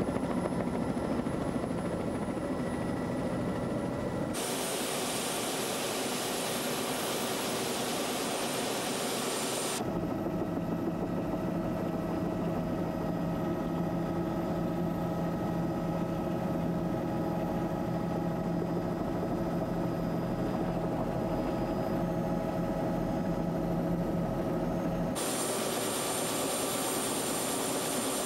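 Helicopter running in flight: a steady drone of engine and rotor with a high, steady whine over it. Its tone changes abruptly three times, at about 4, 10 and 25 seconds in.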